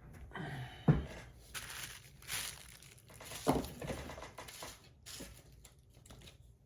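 Hands handling and rustling packaging, with a few sharp knocks and clicks among the crinkling.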